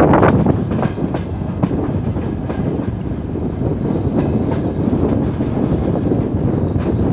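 Passenger train coach running on the rails: a steady low rumble of the wheels with irregular clicks as they pass over rail joints.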